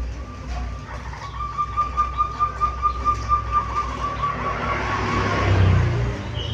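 Caged zebra dove (perkutut) cooing: a quick run of short, evenly spaced notes, about four a second, for some three seconds. Near the end a broad rush of noise swells and fades, louder than the cooing.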